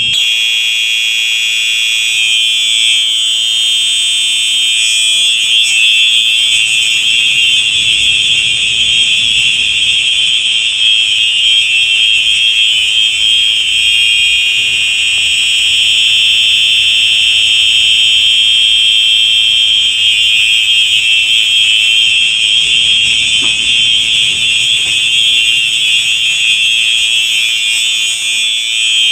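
Two Simplex 4903 electronic fire alarm horn strobes (a 9238 and a 9242) sounding together: a loud, steady, shrill electronic horn tone with no breaks.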